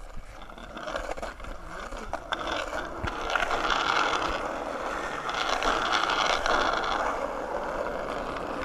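Skateboard wheels rolling over street asphalt: a steady rumble, louder through the middle, with scattered clicks.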